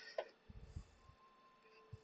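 Faint handling noises: a light click, then a few soft low thumps, with a faint thin steady tone underneath in the second half.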